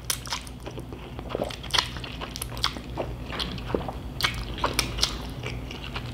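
Close-up mouth sounds of a person slurping and chewing Korean cold noodles: an irregular run of short wet clicks and smacks.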